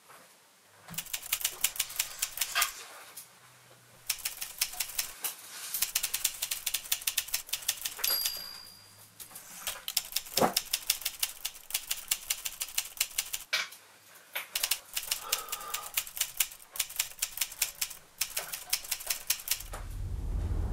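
Typewriter keys clacking in quick runs of keystrokes, with short pauses between the runs and a brief high ring about eight seconds in.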